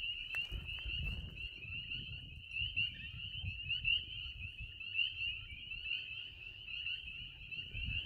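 A steady chorus of many small frogs, a dense mass of short, high, rising peeps overlapping without a break. Underneath is a low, irregular rumble of walking and handling noise.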